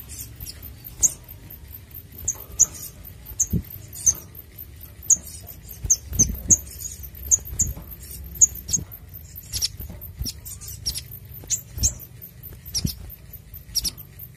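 Olive-backed sunbird giving a run of short, sharp, high-pitched chips, one or two a second at uneven spacing, with a few soft low thumps among them.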